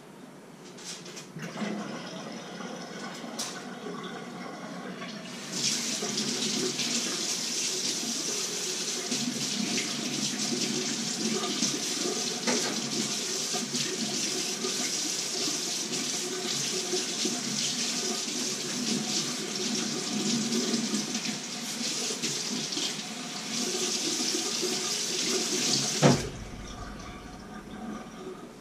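Kitchen tap running into a stainless steel sink while something is rinsed by hand. The flow comes on stronger about five seconds in and stops suddenly near the end with a sharp knock.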